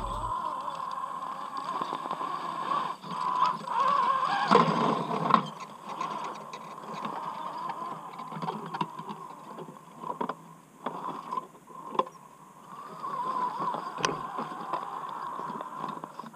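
RC rock crawler's brushed electric motor whining steadily as it crawls over rock, with tyres and chassis scraping and knocking on stone; a loud scraping crunch about four to five seconds in and a few sharp clicks later on.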